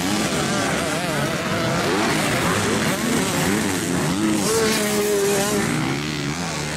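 Several motocross bikes' engines revving up and down as the riders accelerate through a corner, their pitches rising and falling over one another, with one engine holding a steady note for about a second midway.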